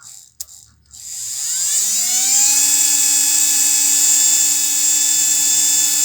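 A short click, then about a second in the small electric motor of a Hummer PLI12 cordless screwdriver spins up with a rising whine and settles into a steady high whine. It is running smoothly, freshly lubricated.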